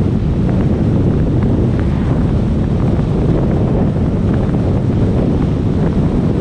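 Steady loud wind rush buffeting the microphone of a camera mounted outside on a pickup's roof rack, mixed with road noise, as the truck tows a boat trailer at about 40 mph.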